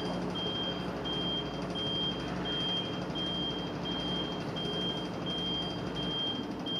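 A high electronic beep repeating evenly, about one and a half beeps a second, over a steady low hum that stops about six seconds in.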